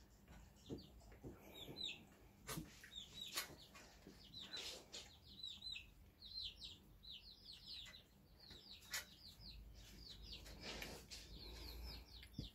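Faint, rapid high chirps of small birds, repeated over and over, with a few short clicks in between.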